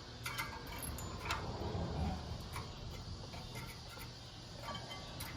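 Brake pad hardware clips being pressed into a caliper bracket: a few scattered light metallic clicks and taps over a low steady rumble.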